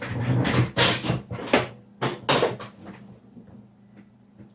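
Hard plastic knocks and scraping as a robot vacuum is pulled off its charging dock. There are several sharp clunks in the first two and a half seconds, then it goes quiet.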